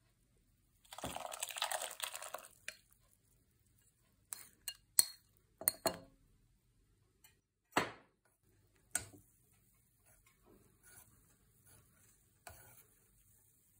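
Egg-lemon sauce poured from a bowl into a pot of soup, a splashing pour of about a second and a half, followed by a series of sharp clinks and knocks of the bowl against the pot.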